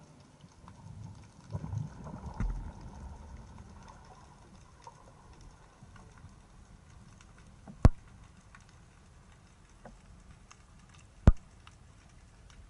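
Underwater sound on a spearfishing dive: a faint continuous crackle of small ticks, a low rumble in the first few seconds, and two sharp loud clicks about three and a half seconds apart.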